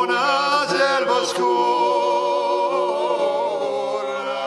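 Four men singing a cappella in close harmony, holding a sustained chord. The top voice ornaments the line about a second in, and the chord slowly fades toward the end.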